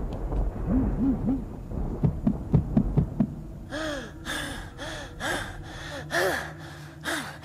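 A cartoon character's voice gasping and panting, short voiced breaths that quicken into about two a second after the first few seconds.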